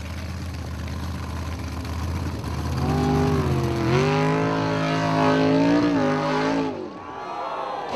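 Formula Offroad buggy's engine revving hard as it climbs a steep dirt slope: a low drone that swells into a loud, high-revving tone, its pitch stepping up about four seconds in and holding. It cuts off abruptly near the end, leaving only a faint sound.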